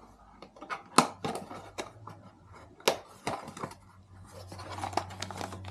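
Rustling and clicking as small accessories are handled and pulled out of their packaging, with two sharper clicks about a second in and near three seconds, over a low steady hum that grows louder in the second half.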